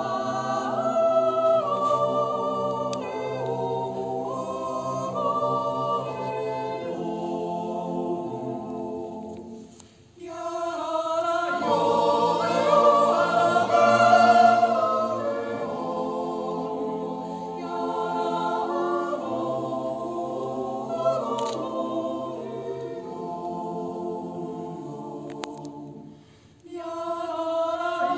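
Mixed Swiss yodel choir of men and women singing a Jodellied a cappella in close harmony, holding long chords. The singing breaks off briefly twice, about ten seconds in and near the end, before the next phrase starts.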